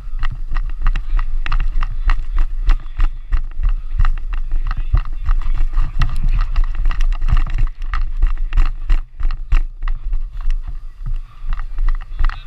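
Wind buffeting a helmet-mounted camera's microphone in a steady low rumble, with many quick, irregular knocks and rattles of helmet and gear as the wearer moves.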